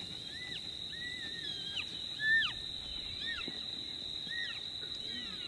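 Coyotes yipping and howling: a string of short, overlapping cries that each rise and then drop off sharply, the loudest about two seconds in. A steady high-pitched insect trill runs underneath.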